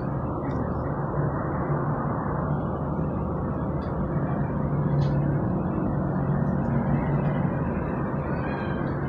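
Steady, dull low rumble of background noise with a faint hum, with no clear events.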